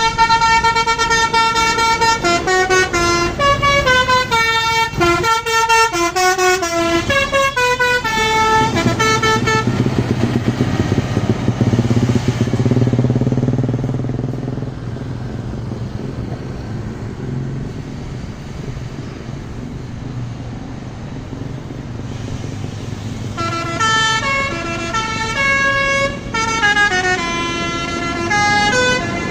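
Bus basuri telolet horn, a multi-tone musical air horn, playing a stepping melody of held notes for the first ten seconds or so. It stops, leaving the bus's low engine rumble for about thirteen seconds, and the horn melody starts again near the end.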